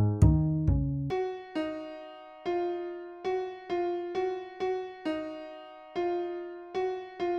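Home-made electronic demo music: a keyboard plays a run of single struck notes, mostly at one pitch, about two a second, each dying away. Deep bass notes sound under it in the first second.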